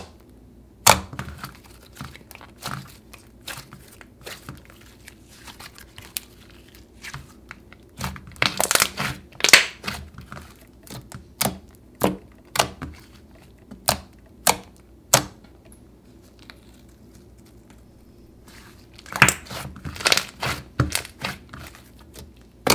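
Soft DIY clay slime being poked, folded and squeezed by hand, giving a string of sharp pops and crackles as air pockets burst. They come bunched more densely about a third of the way in and again near the end.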